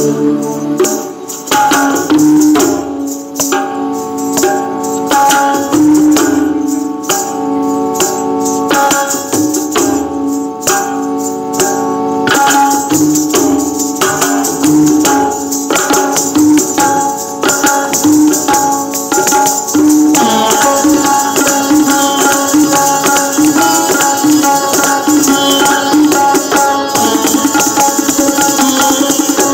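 Kathak dance music: a repeating melodic phrase over percussion, with the dancer's ghungroo ankle bells jingling under stamping footwork. The bell jingle and foot strokes grow denser and faster in the second half.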